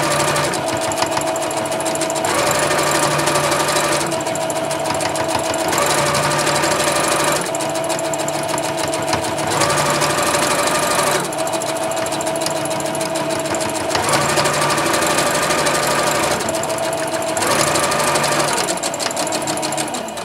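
Singer Confidence sewing machine stitching steadily through layered fabric scraps. Its sound changes back and forth every couple of seconds as the stitching switches between reverse, using the backstitch button, and forward.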